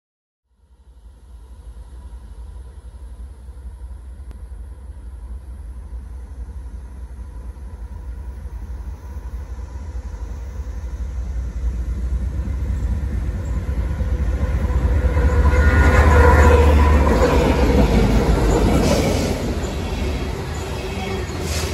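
Freight train led by two BNSF diesel locomotives approaching and passing. The locomotives' low rumble builds over about fifteen seconds and is loudest as they go by, then coal hopper cars roll past with steady wheel-on-rail clatter and knocks.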